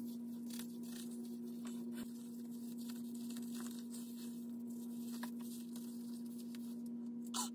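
Faint wet rustling and crackling of hands working a thick hair-colour-removal mixture through the hair, over a steady low hum.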